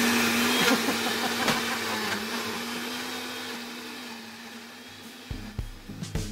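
Large-jug countertop blender motor running at full speed with a steady hum, churning raw sweet potato chunks, eggs and coconut flour into a thick batter; it grows gradually quieter. Background music with a drum beat comes in near the end.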